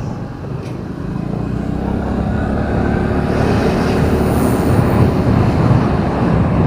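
City street traffic heard from a car being driven: steady engine and road noise, growing gradually louder from about a second in.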